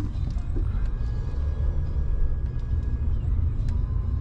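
A car in motion, heard from inside the cabin: a steady low rumble of engine and road noise.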